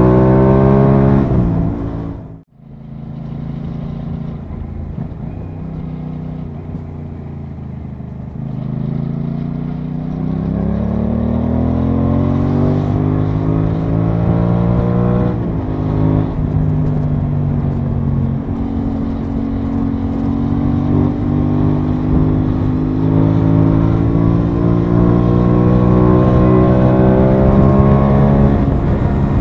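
Aprilia Tuono 660's parallel-twin engine under way, heard from the rider's seat with wind rush. The revs fall away at the start and the sound drops out briefly about two seconds in. It then pulls steadily with the pitch climbing, dips sharply about halfway through, and climbs again.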